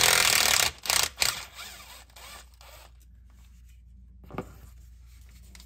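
Cordless impact driver spinning out the bolts of an automatic transmission pan in short rattling bursts; the longest comes in the first second, and it stops after about a second and a half. A small click follows near the middle.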